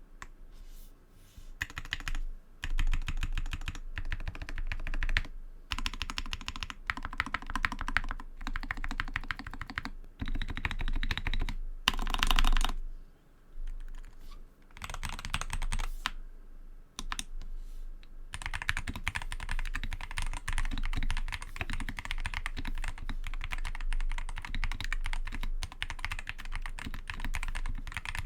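Epomaker SK61 mechanical keyboard with lubed Gateron optical green clicky switches being typed on: dense key clicks in bursts with short pauses, then fast continuous typing through the second half.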